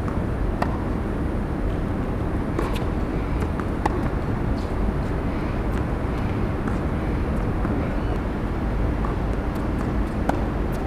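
Tennis balls struck by rackets and bouncing on a hard court during a rally, heard as faint sharp pops every second or two over a steady low background rumble.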